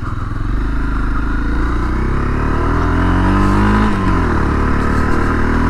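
Honda CRF250L single-cylinder engine running as the motorcycle rides along, its pitch climbing from about two seconds in and falling back just before four seconds, then holding steady.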